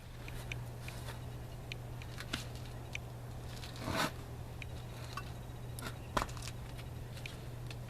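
Scattered light clicks, taps and scrapes of metal parts being handled while fitting a wheel during a tire change, with two louder knocks about four and six seconds in, over a steady low hum.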